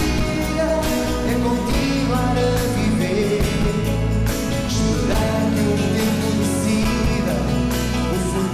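Live band music: drums, bass guitar and keyboards playing while a male singer sings into a handheld microphone.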